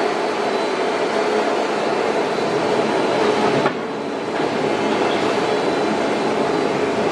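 Nesting CNC router running with a steady, dense machining noise. About three and a half seconds in there is a short click, after which the sound drops and dulls for under a second before it picks up again.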